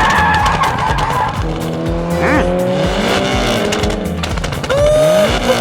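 Background music with a steady beat, overlaid with sliding, engine-like pitch glides and a brief rise-and-fall whistle about two seconds in; a held melodic line starts near the end.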